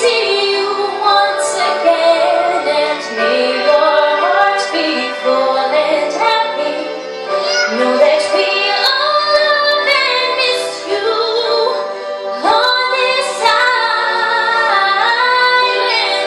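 A teenage girl singing a slow pop song into a handheld microphone, her amplified voice carried over a backing track.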